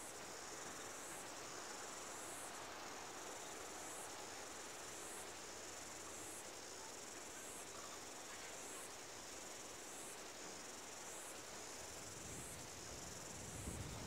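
Insects chirping in an even rhythm, a high pulse about every second and a quarter, over a soft steady hiss.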